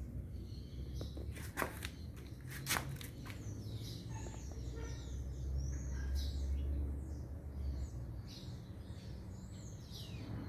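Songbirds chirping and calling: many short high chirps and quick whistled glides, with two sharp clicks within the first three seconds and a low rumble underneath.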